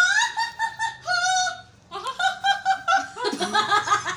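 High-pitched laughter in quick, pulsing beats: a single laughing voice at first, with several more voices breaking into laughter from about two seconds in, some of them lower.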